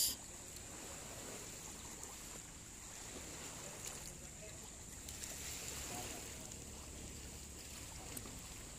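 Calm sea water lapping against a concrete jetty, over a low steady rumble and a faint steady high tone.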